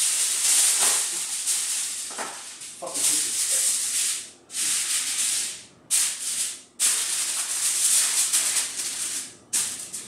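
Sheet of Reynolds Wrap aluminium foil crinkling and rustling as it is handled and pressed down over a baking tray by hand, in several long stretches broken by short pauses.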